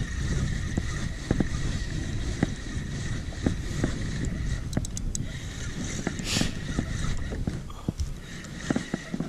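Wind on the microphone and water against a kayak hull, with scattered light clicks and knocks from a spinning reel and rod while a fish is being reeled in. A brief rush of hiss about six seconds in.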